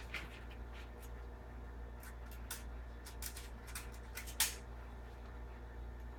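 A run of light clicks and scrapes, the last and loudest about four and a half seconds in, over a steady low hum.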